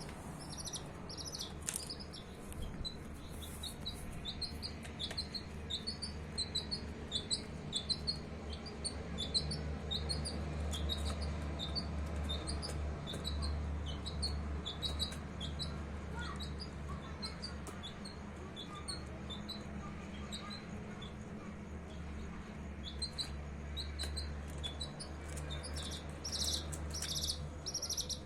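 Domestic chicks peeping: a steady stream of many short, high, falling peeps, thickest near the end, over a steady low hum.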